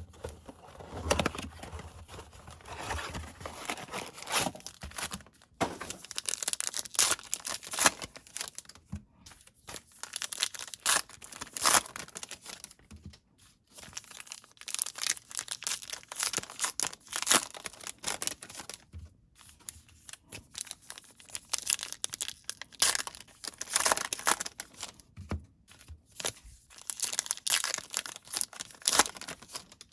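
Trading card pack wrappers being torn open and crinkled, in irregular bursts of tearing and rustling with short pauses between.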